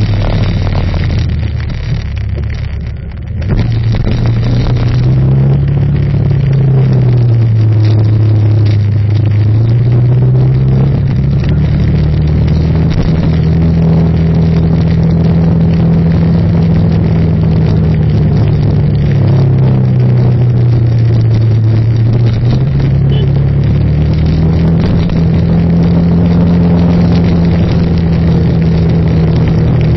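Engine of the vehicle carrying the camera, running as it drives, its pitch rising as it speeds up and falling as it slows several times. It is briefly quieter about three seconds in.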